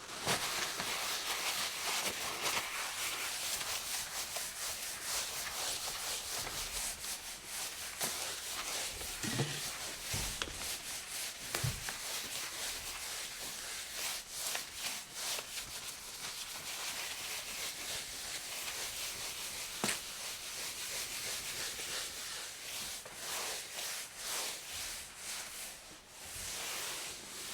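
A cloth rubbed back and forth over a hard counter surface in continuous wiping strokes, with a few soft low bumps partway through.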